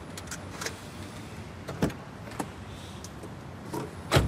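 Steady street-traffic hum with a car door being shut and several sharp knocks and clicks; the loudest knock comes near the end.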